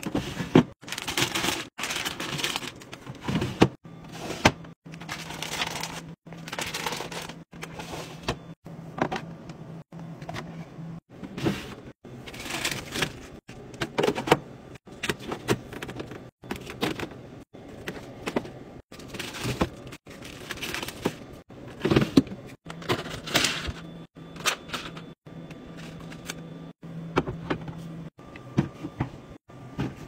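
Groceries being restocked into a fridge: plastic bottles and containers knocking and clattering as they are set in place, with packaging rustling. The sound comes in quick bursts, each cut off abruptly, over a faint low hum in places.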